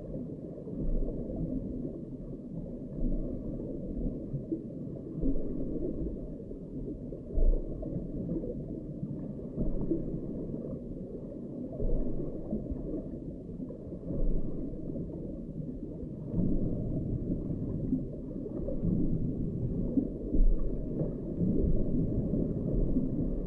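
Muffled low rumble of water picked up by an underwater camera's microphone beneath lake ice, with a few louder swells.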